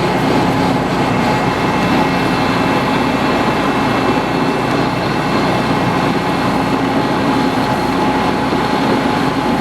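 Metal lathe running steadily while machining a cast iron sawmill mandrel collar, a constant machine hum with several held tones.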